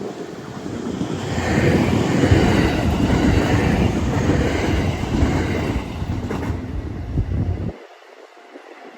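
Train passing close by. The rumble builds over the first two seconds, holds, then falls off suddenly near the end.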